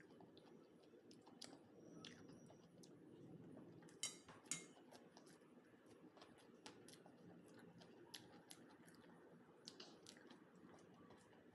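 Faint chewing of a mouthful of rice and curry, with scattered wet mouth clicks and two sharper clicks about four seconds in.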